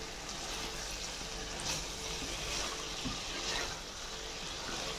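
Collard greens with beef cooking in a pan, giving a steady sizzle, with a few faint clicks from the stirring spoon.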